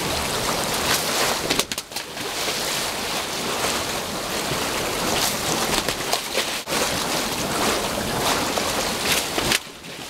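Loud rushing and churning water pouring through a concrete channel past steel baffle panels. It is a dense, even roar with brief flares and dips, and it drops to a lower level shortly before the end.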